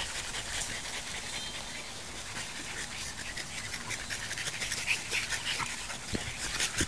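French bulldogs panting as they play, with scattered small clicks and rustles.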